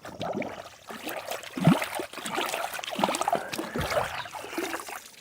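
River water splashing and trickling in irregular swishes as a sand-covered pig skull is rinsed off by hand.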